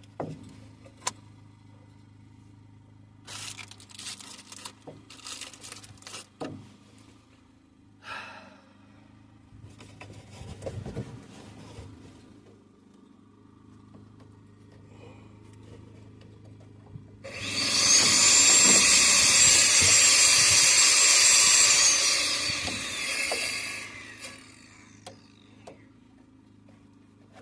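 Power drill running for about four seconds, its high motor whine sliding down as it spins to a stop. Before it come scattered clicks and short rustling bursts from handling parts.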